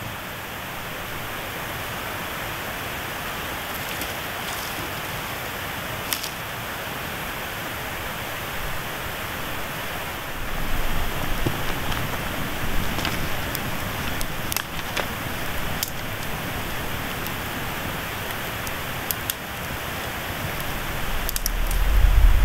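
Small campfire of sticks catching and burning, with sharp crackles and pops every second or few over a steady hiss. A low rumble comes in near the end.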